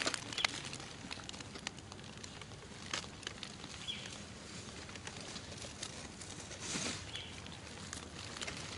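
Outdoor ambience with scattered light clicks and rustles, and two short faint high chirps about four and seven seconds in.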